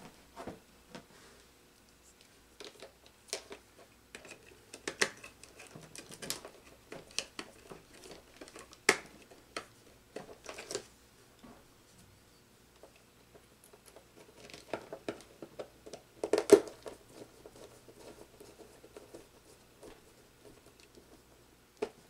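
Scattered small clicks and rustles of wires being handled and fitted into a terminal block, with a few sharper clicks, the loudest about sixteen seconds in.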